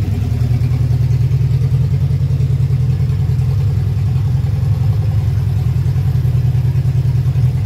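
Toyota Kijang/Corolla DX four-cylinder engine, swapped into an old Mercedes-Benz sedan, idling steadily with an even low pulse.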